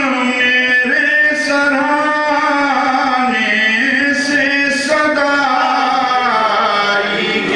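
A man's voice chanting an Urdu salam, a devotional elegiac verse, unaccompanied. It is sung in long held notes that slide slowly in pitch, with a few sharp hissing consonants between them.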